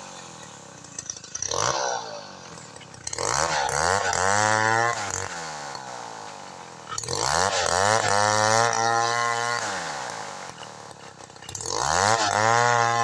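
Chainsaw engine blipped once, then revved up to full throttle three times, each time held for a second or two and let back down toward idle.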